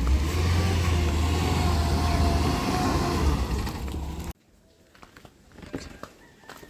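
A motor vehicle's engine running close by, a steady low hum with faint pitched tones that bend slightly, cutting off suddenly about four seconds in; after that only faint clicks.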